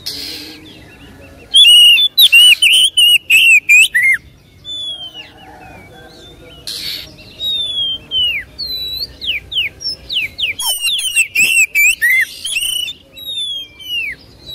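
Oriental magpie-robin in full song: loud, varied whistled phrases and quick downward-slurred notes, coming in a dense burst about two seconds in and another near the end, with scattered single notes between.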